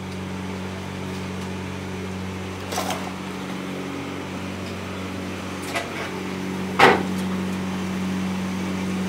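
Steady electric motor hum, most likely the air blower driving a crucible melting furnace, with a few sharp knocks about three, six and seven seconds in, the last the loudest.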